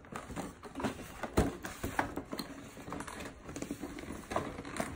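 Cardboard toy box being handled and pried open by hand: irregular taps, scrapes and clicks of the cardboard, with one sharper knock about a second and a half in.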